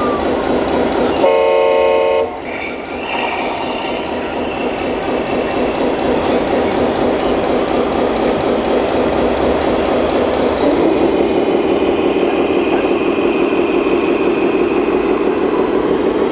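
Scale RC truck's sound module playing a diesel engine running, with a chord air-horn blast about a second in that lasts about a second. The engine note steps up slightly about ten seconds in.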